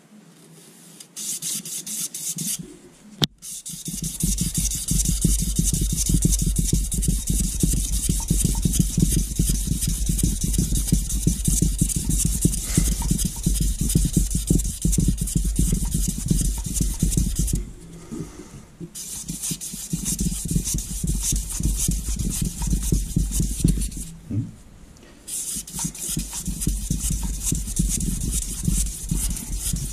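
1200-grit wet-and-dry abrasive paper, oiled, rasping rapidly back and forth around a Rover 3.5 V8 crankshaft main bearing journal to polish out its marks, stopping briefly twice. A single sharp knock about three seconds in, just before the rubbing steadies.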